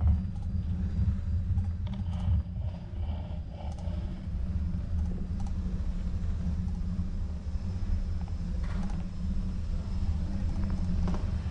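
Steady low rumble of riding a bicycle: wind and road vibration on the camera microphone. Faint distant voices come through about two to four seconds in.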